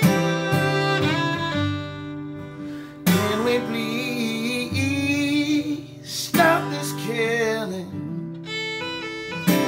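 Acoustic guitar and violin playing a slow song, with a man's voice singing over them. The guitar chords are strummed roughly every three seconds while the violin carries a wavering melody.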